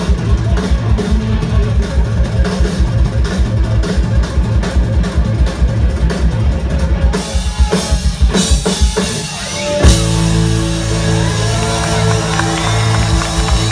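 Live band playing amplified music from a stage, with a steady drum-kit beat and guitar. About ten seconds in the beat stops with a sharp hit and held notes ring on.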